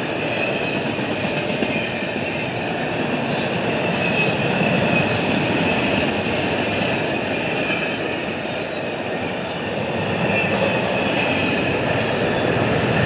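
Intermodal freight cars rolling past on the rails, a steady rolling noise of steel wheels with a thin high whine over it.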